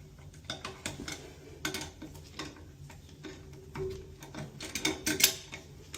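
Irregular small clicks and light knocks of hard objects being handled, loudest in a quick cluster about five seconds in.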